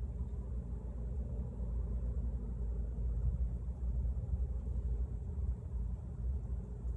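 Steady low background rumble with nothing standing out: room noise while soldering goes on quietly.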